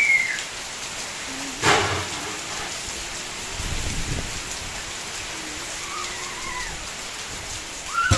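Steady rain falling and pattering on surfaces, with one sharp knock about two seconds in and a brief low rumble near the middle.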